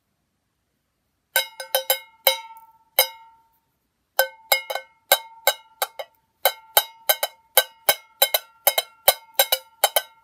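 Popsicle-stick drumstick beating a homemade Pringles-can drum, each hit a sharp knock with a short metallic ring. A quick flurry of taps starts about a second in, stops briefly, then goes on as steady tapping at about three taps a second.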